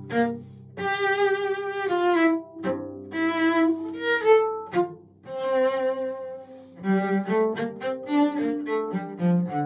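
Cello music: a bowed cello plays a melody of sustained notes that move up and down in pitch, phrased with short breaks about half a second in and again about five seconds in.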